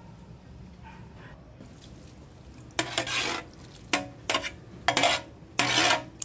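Shredded homemade coconut gelatin being added by hand into a glass bowl: five short handling sounds in the second half, the first and last the longest.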